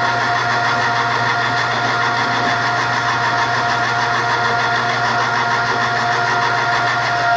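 1,300-pound electric wire-rope hoist motor running steadily with a constant hum and whine as it winches the lift platform up the track, cutting off suddenly at the end.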